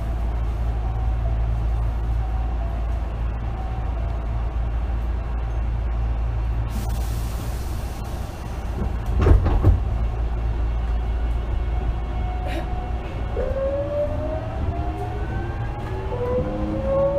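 Inside a Hankyu 8000 series car standing at the platform: a steady low hum, a short hiss about seven seconds in, and a heavy thud about nine seconds in as the doors close. From about thirteen seconds the VVVF inverter's whine rises in several tones together as the train starts to pull away.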